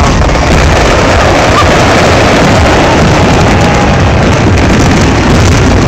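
Aerial firework shells bursting in a rapid, unbroken barrage, the bangs running together into one loud rumble that overloads the phone's microphone.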